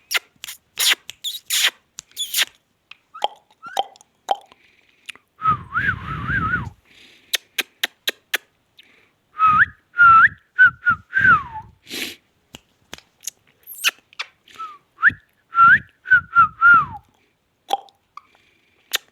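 Indian ringneck parakeet whistling in short, wavering notes that come in three groups, with sharp clicks in between.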